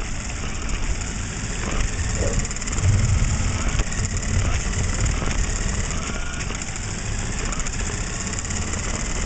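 Mini remote-control car's small electric motor and gears running steadily as it drives over a wooden floor, with the wheels rolling and a low rumble, heard up close from a camera riding on the car.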